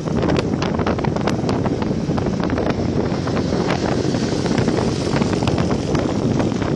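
Wind buffeting the microphone of a phone carried on a moving motorbike: a loud, steady low rumble with frequent crackles, covering the engine and traffic.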